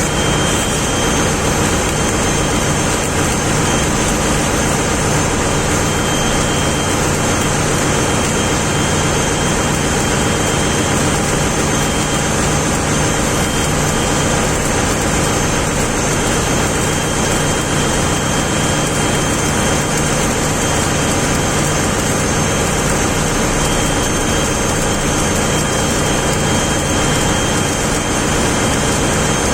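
Steady, loud ship's machinery noise: a constant low hum with a high, steady whine above it, unchanging throughout.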